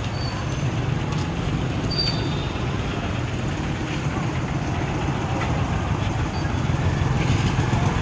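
Street traffic noise from a busy market lane: motorcycle engines running steadily under a general hubbub of distant voices, with a few short high chirps.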